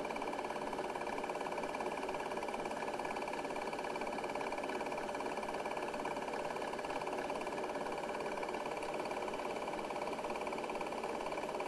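Steady mechanical whirr with a fast, even clatter, the running noise of a film projector.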